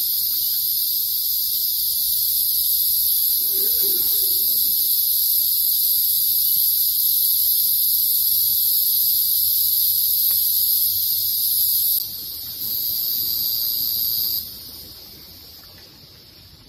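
Forest insects keeping up a loud, steady, high-pitched chorus. It dips briefly about twelve seconds in, comes back, then falls away sharply a couple of seconds later to a much quieter hum.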